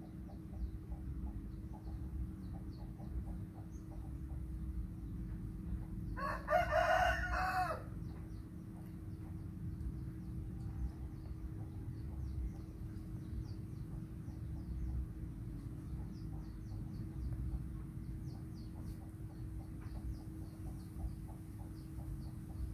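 A rooster crows once, one call of nearly two seconds about six seconds in. Under it run a steady low hum and faint rapid ticking.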